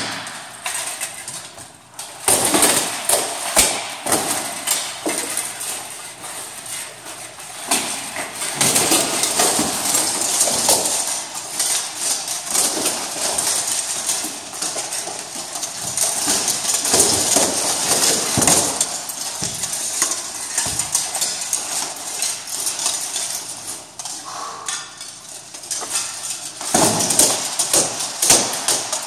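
Steel plate armour clanking and rattling as two armoured fighters spar, with many sharp, irregular knocks of practice-sword blows landing on helmets, shields and armour.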